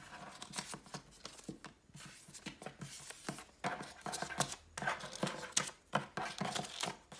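Small hand-cut paper cards being picked up and flipped face down on a wooden tabletop: a string of light, irregular taps and paper rustles.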